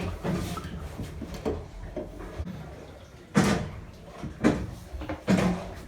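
Wooden cupboard doors inside a boat's cabin being opened and shut: a few knocks and clunks, the loudest about three and a half seconds in, with two more near the end.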